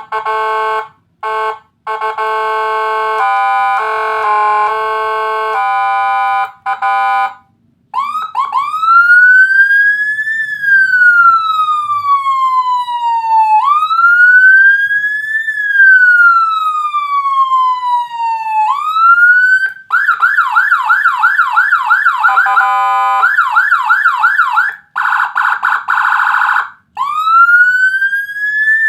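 Electronic siren module with Whelen HHS 3200 tones, through a siren speaker. For the first seven seconds or so it gives steady electronic tones that switch in steps with brief gaps. Then comes a slow wail, rising and falling about every five seconds. About two-thirds of the way in it switches to a fast yelp and a still faster warble, and goes back to a slow wail near the end.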